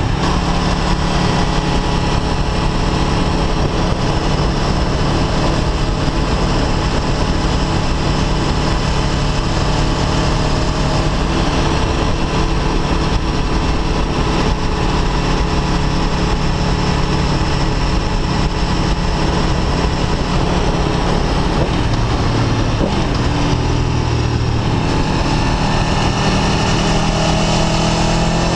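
Aprilia Tuono V4 1100 RR's V4 engine running steadily while the motorcycle is ridden, heard from the rider's position with wind noise. The engine note changes about twenty-two seconds in and rises near the end as the bike accelerates.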